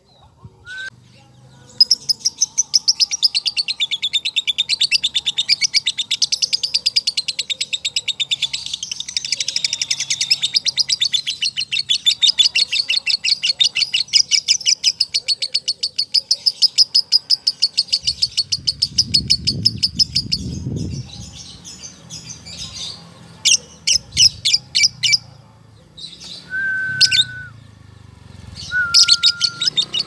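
Fischer's lovebird singing its long chattering 'ngekek' song: a fast, unbroken run of high notes that goes on for nearly twenty seconds. Near the end come a few shorter bursts and two brief steady whistled notes.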